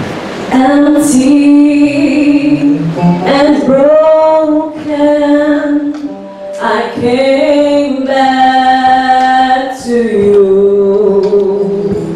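A women's group singing, led by one voice through a handheld microphone, holding long sustained notes that start about half a second in.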